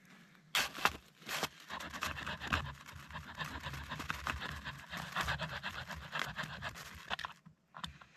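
Small folding saw blade of a pocket multitool cutting through a dead, frozen branch in rapid back-and-forth strokes, starting about half a second in and stopping suddenly near the end.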